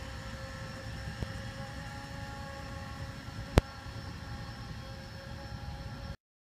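Battery-powered Tennant T16 ride-on floor scrubber running: a steady whine of its motors over a low rumble from the scrub deck, with one sharp click about three and a half seconds in. The sound cuts off suddenly near the end.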